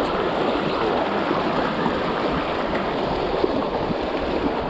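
River current rushing steadily over rocks, a constant even wash of moving water.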